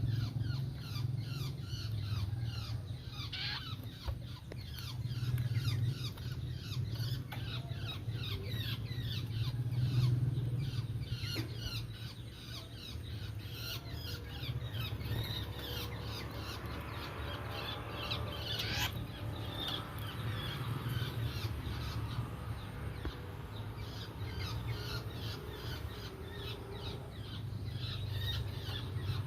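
Long-tailed shrikes calling: a dense run of rapid short chirps and harsh squawks that goes on without a break, over a steady low hum.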